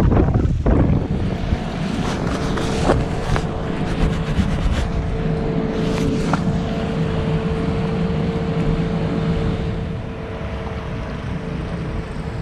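Boat engine running steadily at low speed, a low, even hum, while motoring through a marina. Wind rushes on the microphone at the start, and a few sharp clicks come through around the middle.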